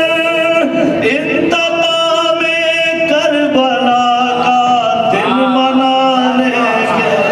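A man reciting Urdu devotional poetry in a sung, chanting style into a handheld microphone, drawing out long melodic notes that rise and fall.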